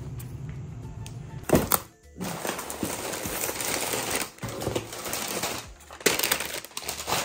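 Cardboard box being opened and white packing paper rustling and crinkling as it is pulled out, with a sharp knock about a second and a half in.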